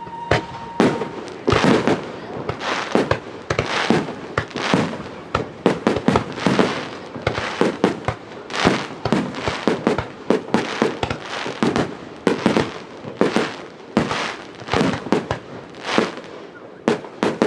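Fireworks star mine: a rapid barrage of aerial shells bursting in quick, irregular succession, about two or three booms a second, each trailing off with a short crackle and echo.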